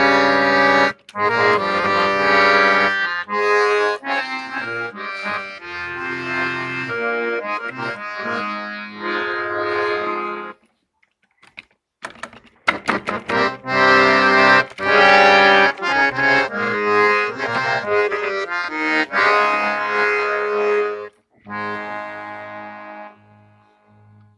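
Scale changer harmonium being played: reed notes and chords changing in two passages. About halfway through there is a two-second pause with a few clicks.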